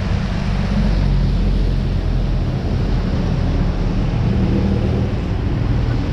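Steady low rumble of road and wind noise during a bicycle ride in traffic, with no single event standing out.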